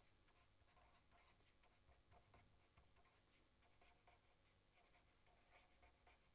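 Faint scratching of a felt-tip marker writing on paper, in many short irregular strokes as letters are formed.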